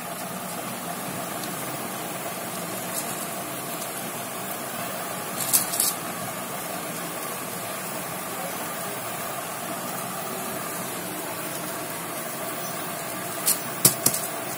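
A steady humming hiss runs throughout. A few brief sharp crinkles of a plastic sheet come about a third of the way in and again near the end, as hands fold and press the hot sugar candy on it.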